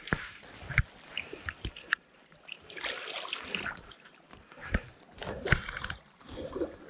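Seawater splashing and sloshing as a mesh hand net is swept through the shallows and lifted out dripping, with several sharp knocks and clicks along the way.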